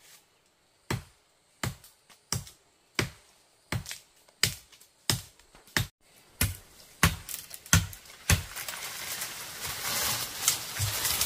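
About a dozen sharp strikes at an even pace, one every two-thirds of a second or so. A few seconds of steady rustling noise with small knocks takes over near the end.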